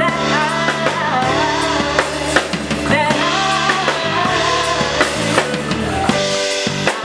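Live band music: a woman singing into a microphone with sliding, wavering notes over drum kit and guitar.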